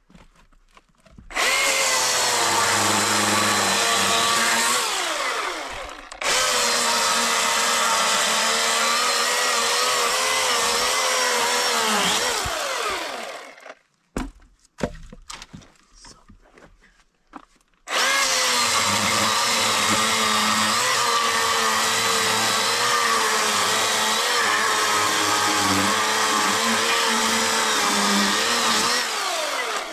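Chainsaw cutting through a log in long runs. It starts about a second in, slows briefly and picks up again around six seconds, and winds down with falling pitch shortly before the halfway point. A few light knocks follow, then a second long cut starts at about eighteen seconds and winds down near the end.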